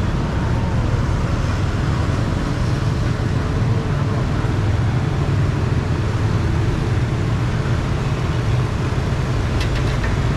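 Steady low roar of a bottled-gas burner firing under a cloth-topped steamer pot, with a few light clicks of a metal ladle near the end.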